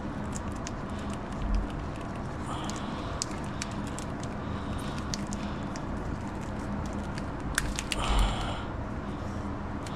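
Scattered small clicks and crackles of wiring and tape being handled while wires are taped into place on an engine harness, with two slightly louder rustles about one and a half seconds in and near the end, over a steady low hum.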